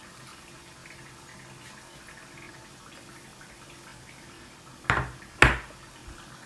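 Oil sizzling faintly and steadily as rolled pastry cigars fry in a small pan. About five seconds in come two sharp knocks about half a second apart, much louder than the frying.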